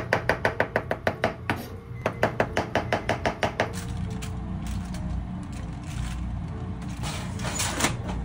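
Kitchen knife rapidly mincing pickled plums on a cutting board: two runs of quick, even chopping strokes, about six or seven a second, in the first four seconds. Near the end comes a short scraping rush as a fish-grill drawer is slid shut.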